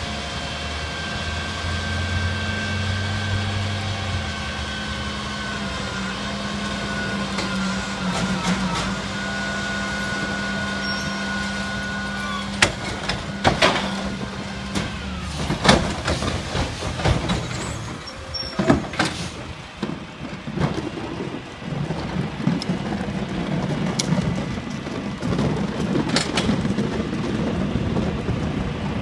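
A Peterbilt 310 garbage truck with a Heil Formula 5000 rear loader runs with a steady engine drone and a whine from its hydraulics while blue recycling carts are lifted on the tipper. About halfway through, a series of loud bangs and clatter follows as the carts are dumped into the hopper and knocked against it. The whine cuts off, and the truck then runs on steadily.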